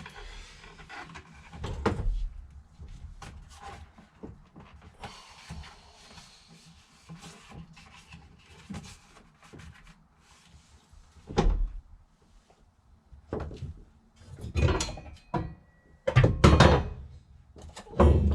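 Plastic steering column trim being worked loose by hand: scattered clicks and rustling, with a few knocks about two-thirds of the way through and a cluster of louder knocks near the end.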